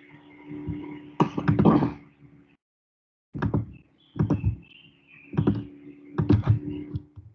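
Knocks and clicks of a computer mouse and keyboard being worked on a desk, in short clusters over a steady low hum. The audio drops to dead silence twice.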